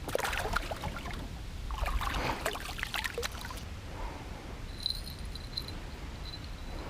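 Water splashing and trickling in two short bursts as a freshly caught small carp is handled at the water. Later a faint, thin, high-pitched tone comes in several short pulses.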